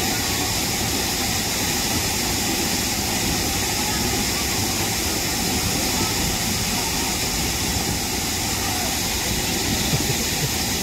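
Steady, unbroken roar of a waterfall and its churning plunge pool.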